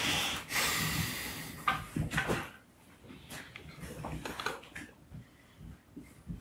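Handling noise on a microphone, most likely as it is passed between audience members: a rustling scrape for the first two seconds or so, then a few faint knocks and clicks.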